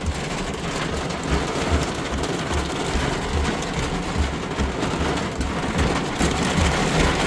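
Heavy thunderstorm rain drumming on a vehicle, heard from inside, a dense patter of drops with a regular low thump about twice a second.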